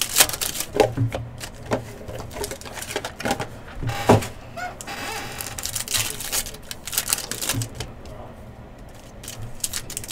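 Irregular small clicks, taps and rustling, with one louder knock about four seconds in.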